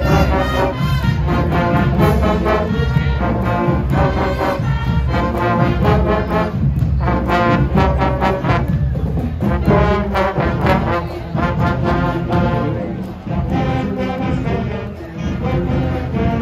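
High school marching band playing, led by a brass section of trombones, trumpets and baritone horns.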